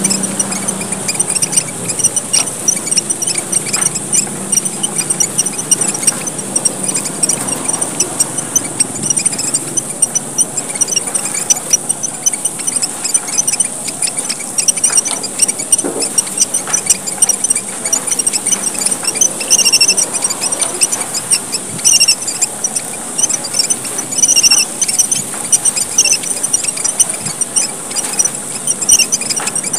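Flock of emprit merah papua (small red finches of Papua) in lively chatter: a dense, continuous stream of very high, thin chirps and twitters.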